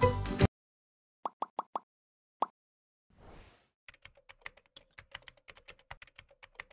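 Background music cuts off, followed by a quick run of four short pitched blips, a fifth blip, and a brief soft whoosh. Then comes a rapid keyboard-typing sound effect, about seven clicks a second, as text is typed into an animated search bar.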